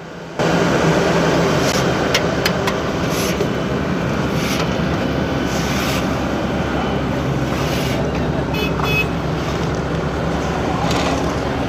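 Diesel engine of a Vögele SUPER-series asphalt paver running steadily, heard up close. A few sharp clicks and a brief cluster of high tones come through over it.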